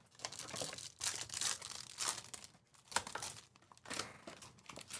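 Foil trading-card packs being torn open and crinkled by hand, heard as a string of irregular, short crinkles and rips.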